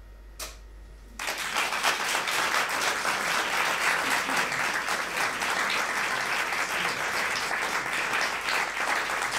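Audience applauding at the end of a stage monologue: after a short hush with one faint click, dense clapping breaks out about a second in and holds steady.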